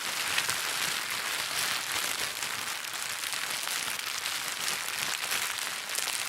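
Plastic bag being crinkled and rustled continuously: a dense, even crackle of many small clicks, with no pauses.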